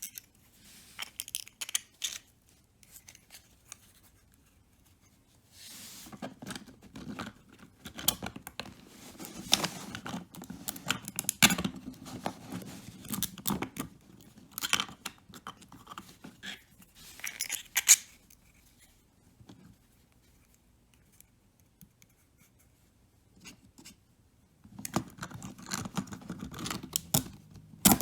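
Hand work on small plastic model parts: bursts of clicking, scraping and rustling as pieces are handled and fitted together, with quiet pauses between.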